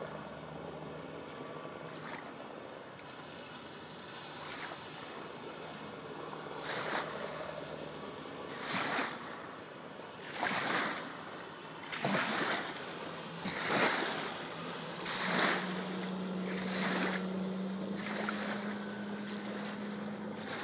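The Sibir 460 motorboat's outboard motor drones steadily at speed, louder from about three-quarters of the way in. Its wake waves splash in every second or two, louder and closer together through the middle.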